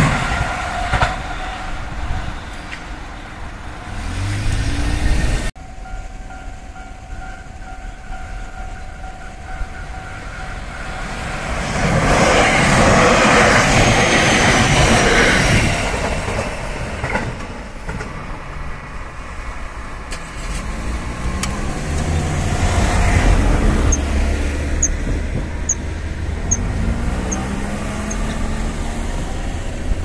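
A JR West 287 series limited express electric train passing a level crossing, its wheels clattering on the rails. The traction motors whine in rising glides, and the crossing's warning bell sounds as a steady tone for part of the time. The train is loudest from about twelve to sixteen seconds in.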